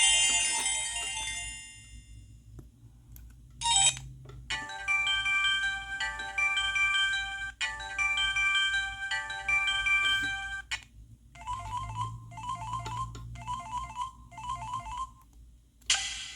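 Downloaded ringtones on a Samsung SGH-T629 mobile phone, played one after another, each stopping abruptly as the next begins. A loud tone fades out at the start. After a short blip, a repeating electronic melody plays for about six seconds, then a quicker figure of short repeated notes, and a new ringtone starts near the end.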